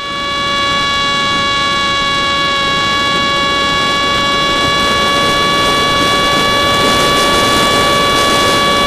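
Zagi flying wing's 2200 kV brushless electric motor and propeller whining at one steady high pitch under constant throttle, with a rush of wind noise, heard from a camera on board.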